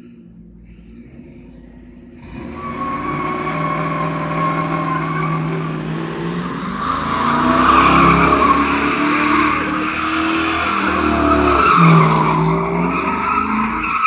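A car doing donuts: about two seconds in, the engine revs up hard and the spinning tyres squeal, the engine note rising and falling as the car circles.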